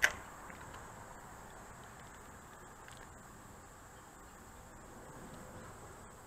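A single sharp click at the very start, then faint outdoor ambience with insects making a steady high-pitched sound.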